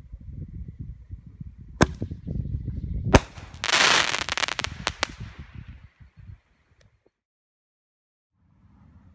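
A Boomer Fireworks Crackling Artillery Shell, a small canister shell fired from a fiberglass mortar tube. There is a sharp report about two seconds in, a louder bang about a second later as the shell breaks, then a dense crackle of many small pops for about two seconds, thinning out.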